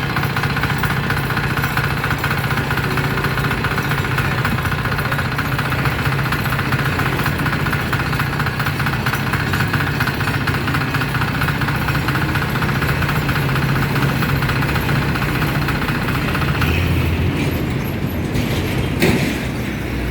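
Firman FTL 900 HD's 5.2 hp diesel engine running steadily. About three seconds before the end its note changes and drops as it is throttled back, and a single short knock follows near the end.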